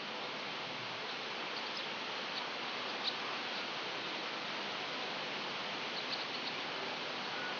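Steady, even hiss of background noise, with a few faint, short high chirps, about three seconds in and again about six seconds in.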